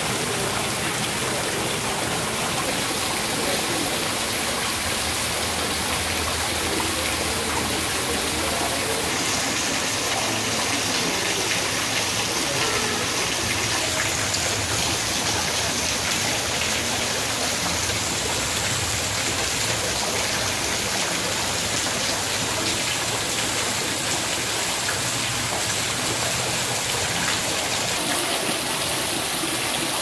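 Thin streams of water falling like rain from above, splashing steadily onto rocks and into a garden pond.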